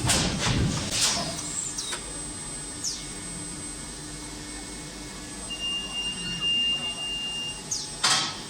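Induction forging machinery running: a steady high-pitched whine, with several short sharp hisses near the start and again near the end, and a second steady tone held for about two seconds in the latter half.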